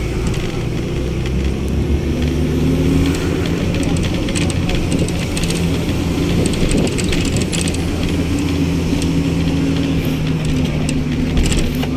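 Engine drone and road noise of a moving road vehicle, a steady low hum that shifts slightly in pitch, with faint scattered rattles.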